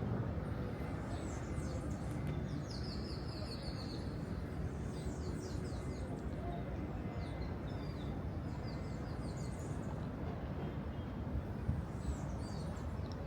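Birds chirping in repeated quick falling trills, over a steady rushing background noise.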